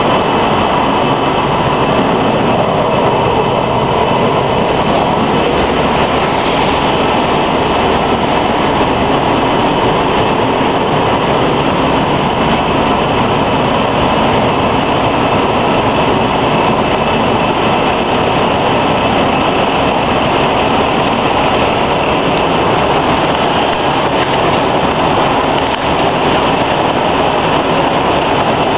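Mineral water bottling line running: a loud, steady din of machinery, with dense fine clicking and clatter of plastic bottles moving along conveyors and through a rotary filler.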